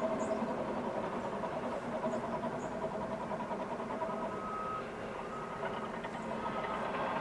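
Heavy quarry machinery running as a steady, dense din, with a vehicle's reversing alarm beeping about once a second from about four seconds in.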